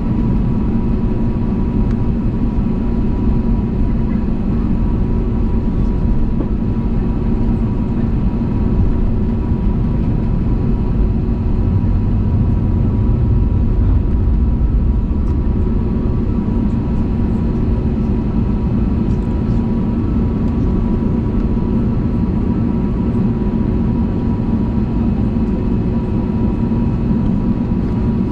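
Airbus A320neo engine and airflow noise heard inside the passenger cabin: a loud, steady drone with a few fixed humming tones over it, holding level throughout.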